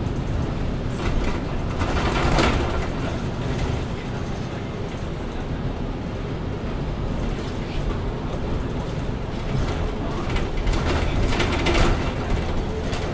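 MAN Lion's City Ü regional bus running on the road during a ride, a steady low engine and road rumble. It swells louder briefly about two seconds in and again near the end.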